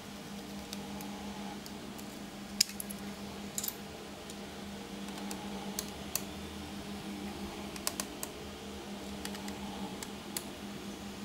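Scattered small clicks and taps of a screwdriver and screws while unscrewing the underside panel of a laptop, the sharpest about two and a half seconds in, over a steady low hum.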